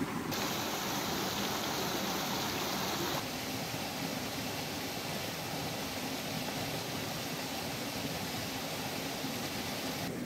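Shallow rocky stream running: a steady rush of water, brighter and hissier for the first three seconds or so, then a little duller.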